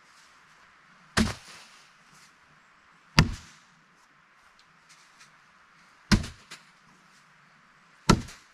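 Bean bags landing on cornhole boards, four thuds about two to three seconds apart.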